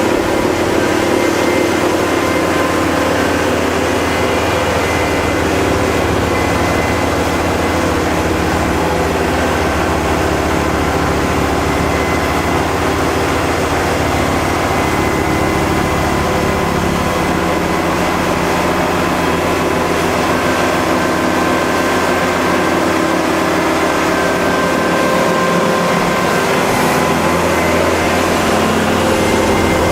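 Kubota L5740 tractor's diesel engine running steadily, with a strong low hum and a few steady pitched tones over it.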